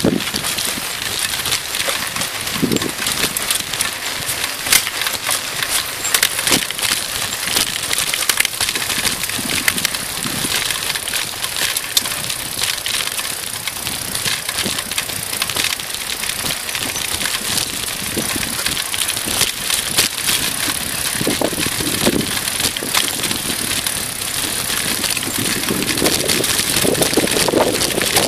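Mountain bike riding over a rough dirt track: a steady rush of tyre noise on the dirt and gravel, with constant rattling and knocking from the bike and its handlebar camera mount over the bumps.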